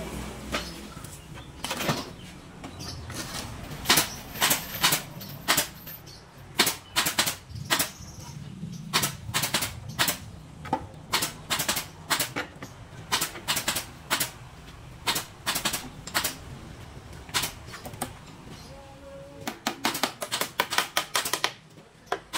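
Irregular sharp taps and knocks on bamboo, a few a second, with a quick flurry of taps near the end, from hand work on bamboo chair parts.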